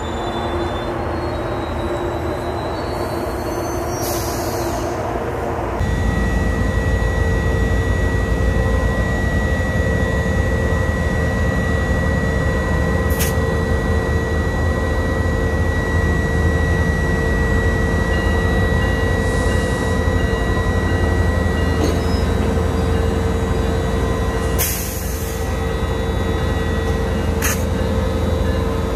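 GO Transit diesel locomotive standing at the platform with its engine running: a steady low rumble with a steady whine above it. Short bursts of hissing air come a few times, and the engine sound steps up suddenly about six seconds in.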